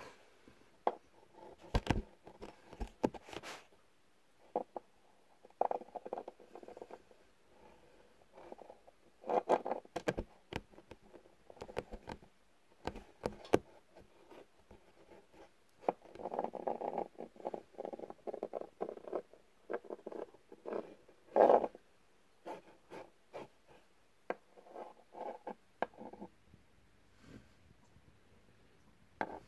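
Irregular scuffling, scratching and tapping right at the microphone, in short bursts with quiet gaps between them, and one sharper knock about two-thirds of the way through.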